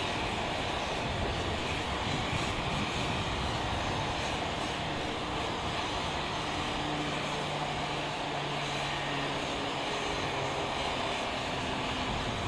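Steady aircraft engine noise on the flight line: a continuous, even rushing sound, with a faint low hum that comes and goes in the middle.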